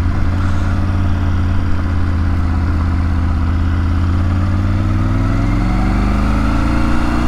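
Triumph Tiger 900 GT Pro's three-cylinder engine running steadily at low road speed. From about five seconds in, the revs climb as the bike speeds up.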